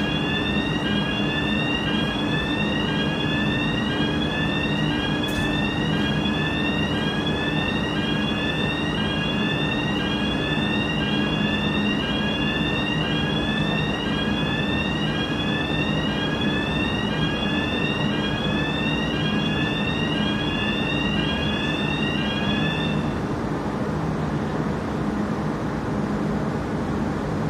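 Fire alarm sounders sounding a rising sweep tone that repeats about once a second, set off during an alarm system test. The sweeps cut off about 23 seconds in. A steady low hum of ventilation machinery runs underneath throughout.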